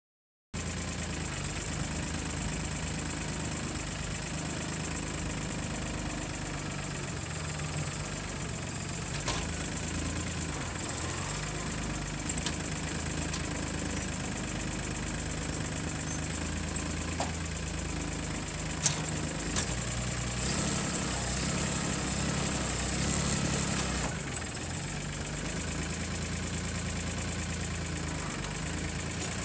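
Mahindra tractor's diesel engine running steadily while its front-end loader is worked, with a few sharp knocks and the engine working a little harder for a few seconds about two-thirds of the way through.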